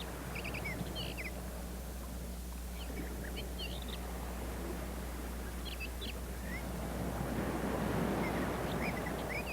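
Faint high chirps, short and scattered, of small birds, over a steady hiss and a low electrical hum. The hiss swells a little toward the end.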